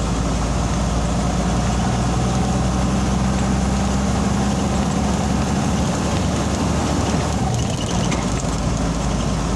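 Motor vehicle engine running with a steady low hum, under a constant rush of wind and road noise.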